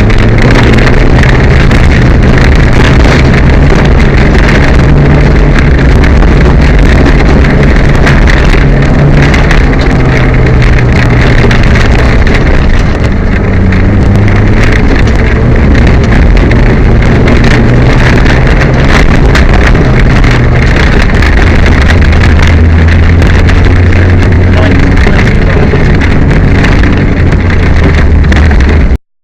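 Peugeot 205 rally car's engine heard loud from inside the cabin at speed, its pitch rising and falling as the driver works the throttle and gears, over road and wind noise; the engine has a misfire. The sound cuts off abruptly near the end.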